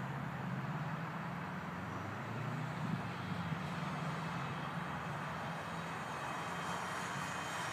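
Steady low engine rumble with a noisy hiss over it, slightly louder in the first few seconds.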